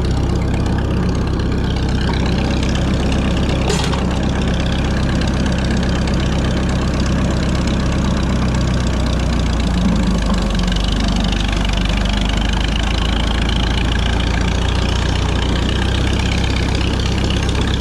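Tractor engine idling steadily, with a slight change in its note about ten seconds in.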